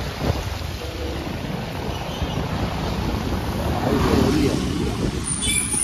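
Street traffic: cars driving past on a wet road, with a steady rush of engines and tyres and one vehicle passing close about four seconds in. A short high-pitched tone sounds briefly near the end.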